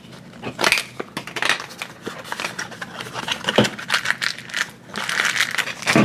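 Hands opening toy packaging: scattered clicks and crackles of plastic packaging and a clear plastic case being handled, then a foil wrapper crinkling loudly near the end.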